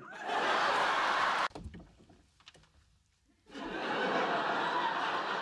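Studio audience laughing, twice: once at the start, stopping abruptly about a second and a half in, and again from about halfway through, after a quiet gap with a few faint clicks.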